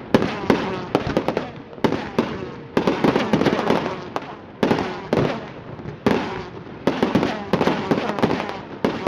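Fireworks display: a dozen or so sharp shell bursts, about one to two a second, each fading in a rumbling echo, with crackling between them.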